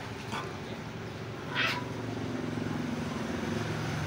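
A kitten gives one short cry about one and a half seconds in. A low engine drone then grows steadily louder in the background.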